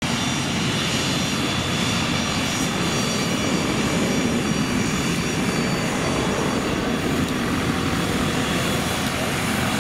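The twin rear-mounted Williams FJ44-3A turbofans of a Cessna Citation CJ2+ business jet running at taxi power. It is a steady jet rush with several thin, high whining tones over it.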